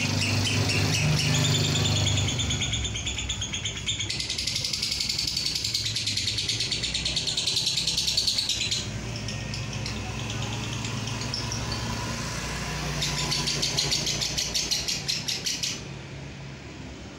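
Fischer's lovebird singing a long 'ngekek', a fast unbroken chattering trill of rapidly repeated high notes. The pattern changes every few seconds and the trill dies away near the end. A low steady engine-like hum runs underneath.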